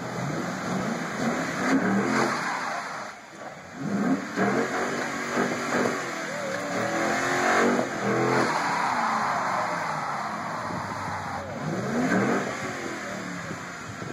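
Ford Mustang GT California Special's 4.6-litre V8 revved over and over in short rising and falling bursts, with a brief drop about three seconds in. The car stays put without a burnout, held back by traction control that was left switched on.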